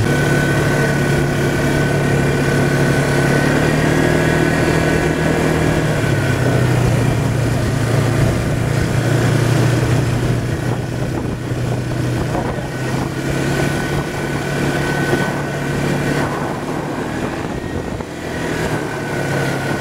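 ATV engine running under way, its pitch stepping up and down a few times as the throttle changes, with a thin steady whine above it.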